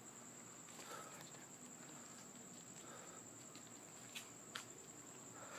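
Faint, steady high-pitched trill of night insects such as crickets, with two small clicks about four seconds in.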